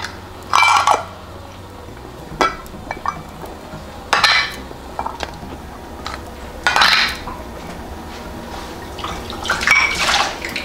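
Boiling water sloshing inside small glass mason jars as they are shaken and emptied to sterilize them, in about five separate bursts, with clinks of glass and metal lids.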